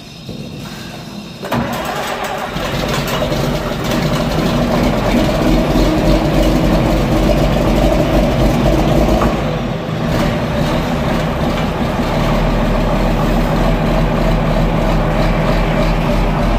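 John Deere 4640 tractor's diesel engine cranked and starting cold, catching about a second and a half in and then running steadily, with a deeper rumble from about twelve seconds in. The start comes with heavy white smoke from the exhaust stack, as a cold diesel gives.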